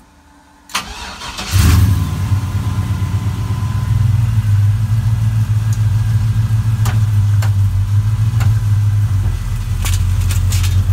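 A Chevrolet 5.3-litre LS V8 swapped from a 2000 Silverado is cranked briefly by its starter, catches about a second and a half in, and settles into a steady idle. A few sharp clicks sound over the idle near the end.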